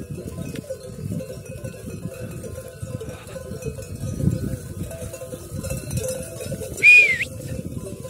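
A flock of sheep on the move, their neck bells clanking continually over a low rumble of movement. About seven seconds in comes one short, sharp high whistle, the loudest sound here.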